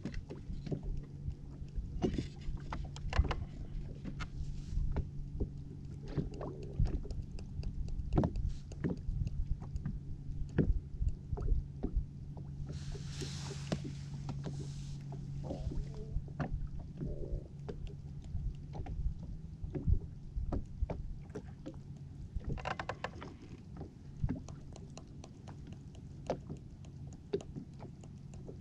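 Small fishing boat at rest on the water: a steady low hum with scattered small knocks and taps on the hull and gear. Two brief hissing swells come midway and again later.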